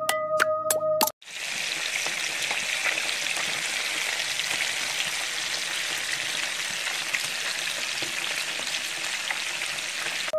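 Soft background music for about a second, then a cut to sardine pieces frying in hot oil. The oil gives a steady, dense sizzle and crackle.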